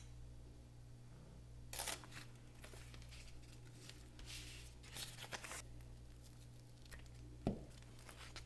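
Faint tearing and rustling of scraps of printed paper being handled for collage, in several short bursts, with a soft knock near the end.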